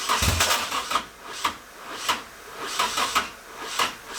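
Nissan Silvia's swapped KA24DE four-cylinder being cranked over by the starter without firing, surging rhythmically about twice a second. It does not start because the fuel pump is not priming.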